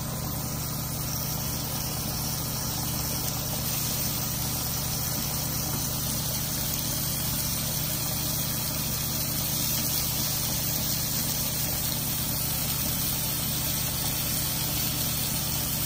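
Blackfin tuna steaks searing in a hot oiled grill pan on a grill burner: a steady sizzle with a steady low hum under it.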